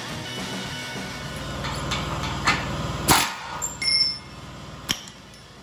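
Pneumatic cutoff tool cutting into a steel frame rail, running steadily and then stopping suddenly about three seconds in. Several sharp metallic clanks follow, one with a brief ring.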